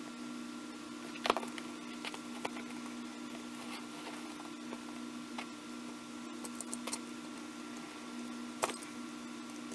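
Small clicks and taps of tweezers and fingers handling the metal and plastic parts of a partly dismantled Canon PowerShot SX730 HS compact camera, with a sharper click about a second in and another near the end, over a steady low hum.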